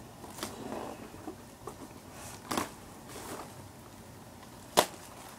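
Plastic shrink-wrap crinkling and tearing as it is peeled off a cardboard collection box, in scattered crackles and rustles, with one sharp click near the end.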